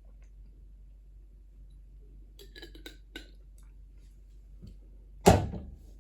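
A few light clicks and taps, then one loud thump about five seconds in.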